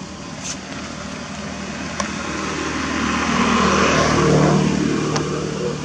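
A motor vehicle passing: a steady engine hum and road noise that swell to their loudest about four seconds in, then fade. There is a sharp click about two seconds in.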